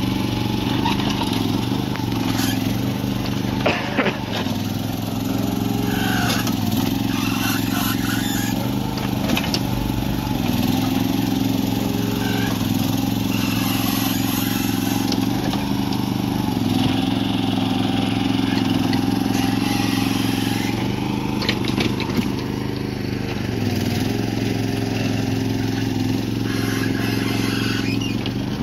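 A small tracked mini excavator's engine running steadily while its hydraulic arm digs into a pile of soil, the engine note shifting slightly under load. A few brief knocks come through, about 4 seconds in and again around 21 seconds.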